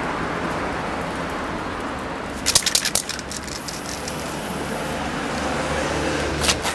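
Aerosol spray-paint can hissing in a quick series of short bursts about two and a half seconds in, and again briefly near the end, as paint is sprayed through a stencil. Steady street traffic noise runs underneath.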